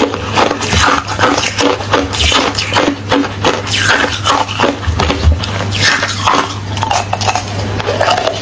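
Close-up crunching of hollow refrozen ice being bitten and chewed: a rapid, continuous run of crisp cracks and crunches.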